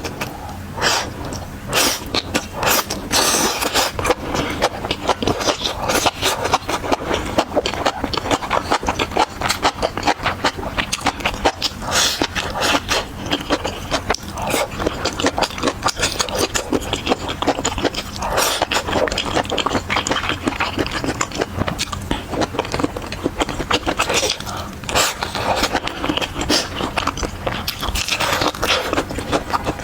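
Close-miked eating sounds: chewing and biting, a dense run of sharp clicks and short noisy strokes.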